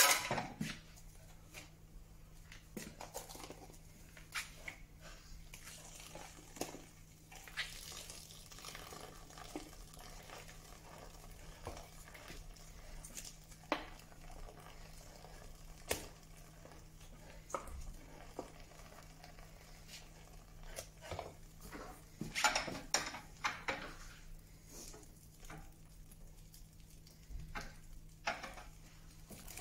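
Metal mould and fittings of a Multimate paper briquette press knocking and clicking as wet sawdust-and-paper pulp is scooped and packed into it by hand, with soft scraping of the damp mix. A sharp knock comes at the very start and a quick flurry of knocks about three quarters of the way through.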